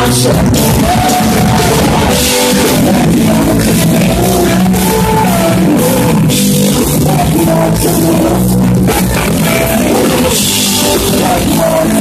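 Live blues band playing loud: electric guitar over a drum kit, with a lead line that bends up and down in pitch.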